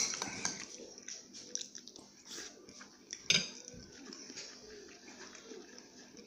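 Close-up mouth sounds of a man eating chicken feet: irregular chewing and smacking. A spoon clinks sharply against the ceramic rice bowl at the start, and there is another sharp click a little over three seconds in.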